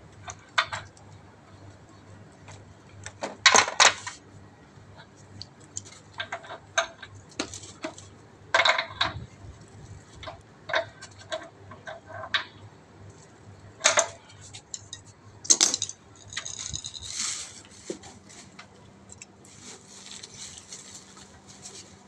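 Adjustable wrench clinking and knocking against the metal non-return valve and threaded fittings on top of an electric water heater as they are tightened. The clanks come irregularly, a few of them sharp and loud, with a brief metallic ringing near the end.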